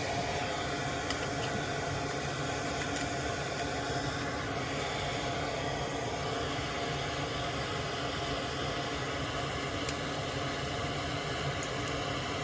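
Steady hiss with a faint hum, like a small fan running, with a few faint clicks.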